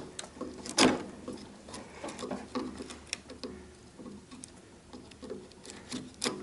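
Chisel working the waste out of a mortise in timber: irregular sharp taps, cuts and scrapes of steel on wood, with the strongest knock about a second in.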